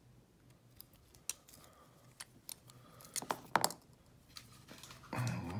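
Lock picks clicking inside a Ruko brass padlock, with a cluster of louder metallic clicks about three seconds in as the shackle comes open and the tools are set down. A low voice starts near the end.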